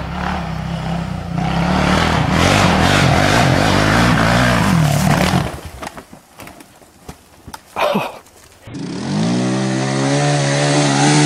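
An ATV engine runs hard for about five seconds, then drops away as the quad crashes, leaving scattered knocks and clatter and one loud short burst. After that a second quad's engine revs up and down as it labours up a steep dirt slope.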